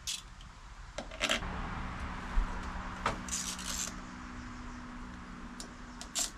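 Ratchet wrench clicking in short runs, with metal clinks, as the transmission cover bolts on a Honda Dio AF18 scooter are snugged down a half turn at a time. A faint steady hum sits underneath.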